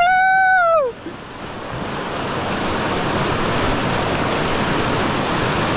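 Whitewater rapids rushing steadily. A long drawn-out shout ends about a second in, after which the rush of water fills the sound.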